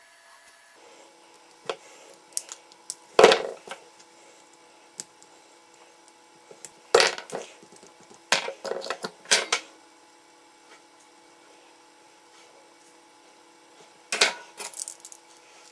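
Hand-held stripboard track cutter twisted into the copper strips of a veroboard to cut the tracks: several short scrapes in separate groups, the loudest about three seconds in.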